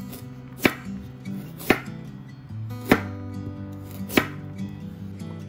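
Chef's knife slicing through a carrot onto a wooden cutting board: four sharp chops about a second apart.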